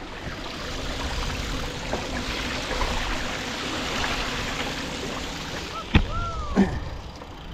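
Gravel bike tyre cutting through deep floodwater, a steady rushing splash of spray that eases off about six seconds in as the wheel comes out onto tarmac. Then a sharp click and a short falling squeak.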